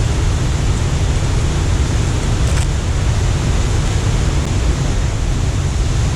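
Steady rushing of water pouring through a dam spillway, a constant noisy roar heaviest in the low rumble.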